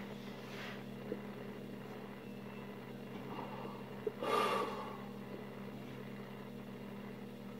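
A sleeping man snoring: a faint snore just after the start and a louder snore about four seconds in, over a steady low hum.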